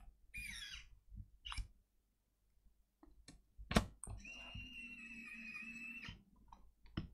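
A small electric screwdriver's motor whining steadily for about two seconds as it drives a laptop hinge screw. Before it come a few light clicks and one sharper knock.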